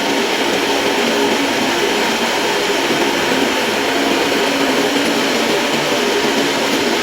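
Steady, even machine noise of a motor running, with no breaks or knocks.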